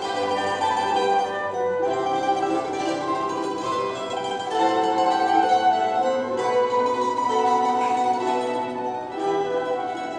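Instrumental introduction of a worship song, led by plucked string instruments playing a melody, with no singing.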